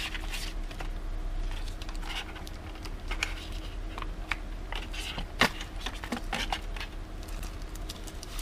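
An SSD's cardboard retail box and the white plastic bag around the drive being handled and pulled open: scattered crinkles, rustles and small clicks, the sharpest about five and a half seconds in, over a low steady hum.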